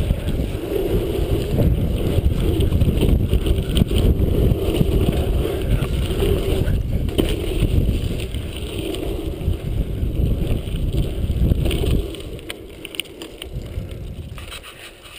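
BMX tyres rolling fast over a packed-dirt pumptrack, with wind rumbling on the helmet camera's microphone and scattered knocks from the bike over the rollers. About twelve seconds in the rumble drops away to a much quieter hiss.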